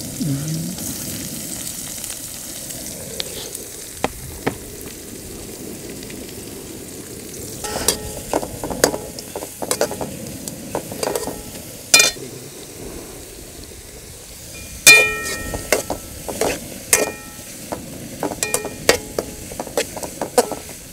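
Chopped onions and green chillies sizzling in hot oil in a metal kadai. From about seven seconds in, a slotted metal spatula stirs them, scraping and knocking against the pan, which rings briefly at the louder knocks.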